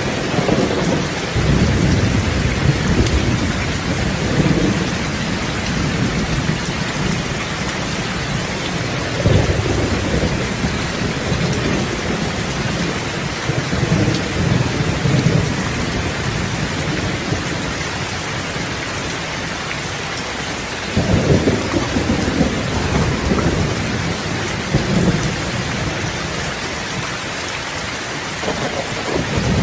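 Steady heavy rain with rolling thunder, the rumbles swelling and fading several times, with sharper cracks about 9 and 21 seconds in.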